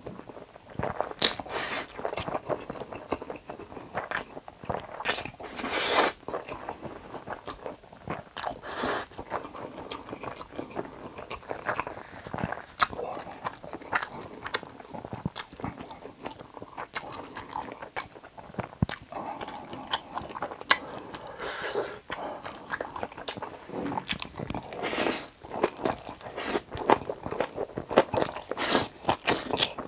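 Close-miked eating sounds: Chapagetti black-bean noodles slurped in several loud rushes, between which come continuous wet chewing and crunching of kimchi.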